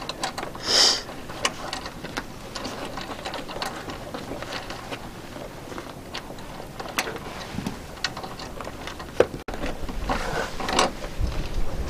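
Hand ratchet wrench clicking in short, irregular runs as a bolt on a solar panel's Z-bracket mounting foot is tightened, with a brief hiss about a second in. Near the end a single sharp click is followed by a low rumble.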